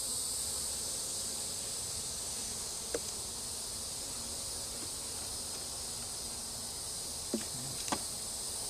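Steady high-pitched insect drone with no break, broken by a few brief knocks: one about three seconds in and two close together near the end.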